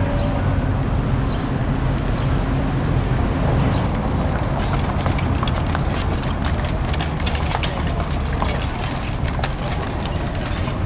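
Street traffic, with vehicle engines running steadily. From about four seconds in, a rapid, uneven run of sharp clicks and taps sounds over it.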